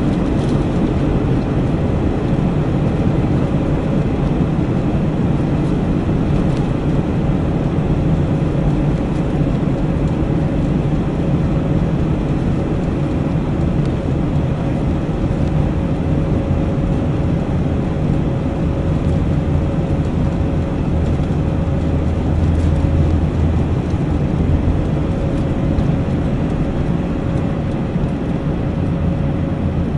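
Airbus A321-200 jet engines at takeoff thrust, heard from inside the cabin over the wing, with the steady low rumble of the takeoff roll down the runway and a faint steady hum; the rumble swells briefly about two-thirds of the way through.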